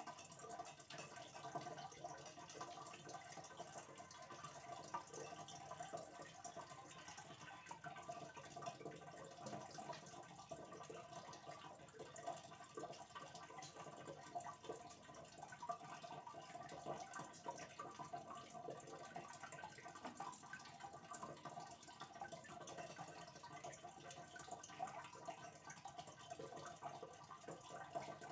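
Faint, steady trickle of aquarium water with many small drips and splashes at the surface.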